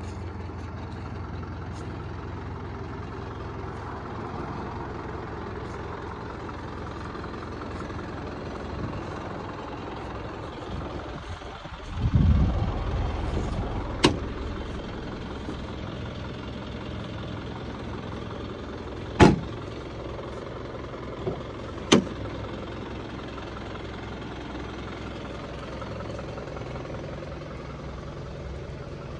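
Isuzu Elf truck engine idling steadily. A brief low rumble comes about twelve seconds in, followed by three sharp knocks spread over the next ten seconds.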